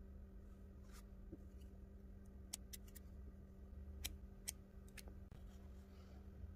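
A faint steady hum with a handful of light, sharp clicks: a blade snipping strings of melted hot glue as they are drawn up from the glue pot onto a bead.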